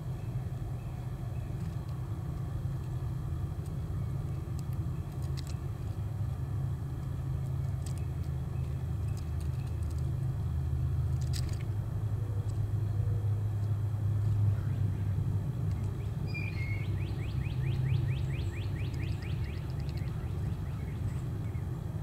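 Steady low outdoor rumble, with a few sharp high ticks in the first half. About three-quarters of the way through, a small bird gives a fast high trill of rapidly repeated notes lasting about three seconds.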